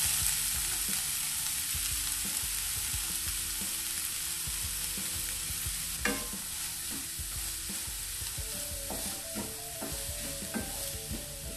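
Chopped onions sizzling in hot coconut oil in a nonstick kadai, a steady hiss that eases slightly as they start to soften. A wooden spatula stirs them, with a few short knocks and scrapes against the pan, most of them in the second half.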